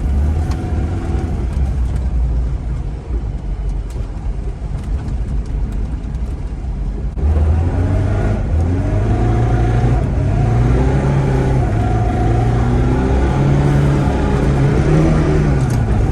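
A classic Zhiguli's inline-four engine, heard from inside the cabin, runs at a low, steady speed. About seven seconds in it suddenly gets louder and its pitch rises and falls repeatedly as the car is driven off under throttle.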